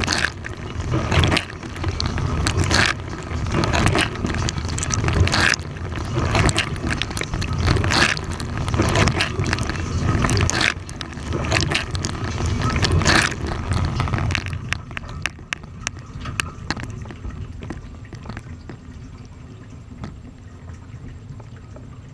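Dishwasher wash cycle heard from inside the tub: jets of water pelting the camera and dishes in loud, uneven surges over a low machine rumble. About two-thirds of the way through the spraying stops, leaving dripping and small scattered ticks.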